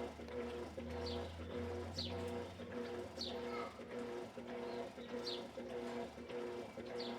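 Electrolux LED14 top-loading washing machine agitating a load, its motor giving a pulsing hum about twice a second as the agitator swings back and forth. Short high chirps come about once a second.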